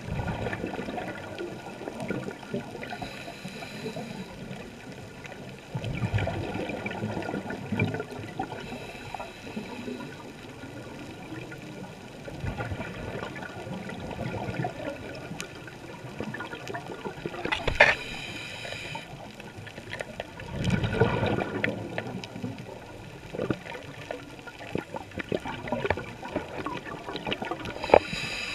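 Scuba diver's breathing through a regulator, heard underwater: bursts of exhaled bubbles about every six to seven seconds, with short hisses between them.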